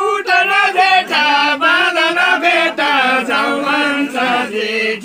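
Men singing an old-style Nepali folk tune (bhaka) unaccompanied, in a chanting manner with long, wavering held notes.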